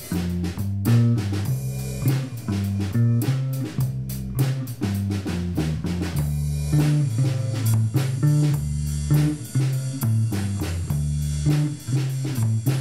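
Background music: an upbeat band track with electric guitar, bass guitar and a steady drum-kit beat.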